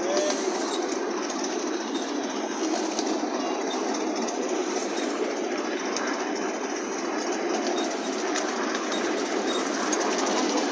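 Ride-on miniature railway train running along its track, heard from on board: a steady rumble of wheels on rail with a few faint clicks.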